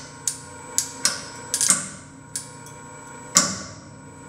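Tubular nylon slackline webbing clamped in weblocks, loaded in a tensile testing machine, giving off about seven sharp, irregular cracks and pops as fibres strain and shift under the rising load, with a faint steady hum underneath. The cracking is the webbing nearing its breaking point.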